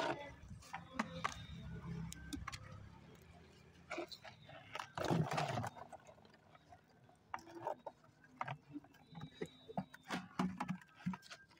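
Live snakehead fish being tipped into a large basin: scattered knocks and slaps of the fish against the basin, with a louder burst of thrashing about five seconds in. A low hum runs under the first few seconds.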